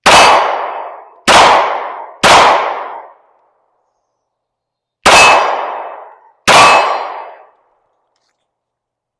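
Five shots from a Glock 43X 9mm pistol firing 124-grain hollow-point carry ammunition: three in quick succession, a pause of about two seconds, then two more, each ringing out for about a second.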